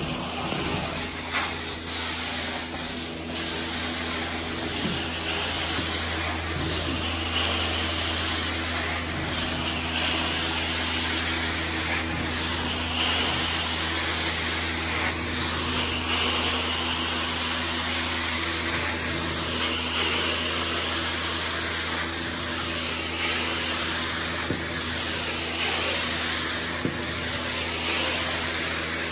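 Hot-water carpet extraction wand spraying and vacuuming carpet: a steady suction hiss over a low machine hum. The hiss swells and eases about every three seconds as the wand is pushed and pulled across the carpet.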